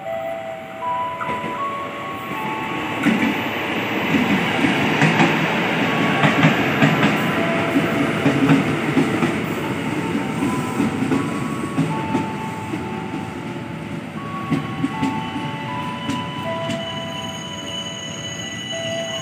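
Electric commuter train pulling into the station platform, its wheels rumbling and clacking over the rails, loudest a few seconds in and easing toward the end. Thin held tones stepping up and down in pitch run underneath throughout.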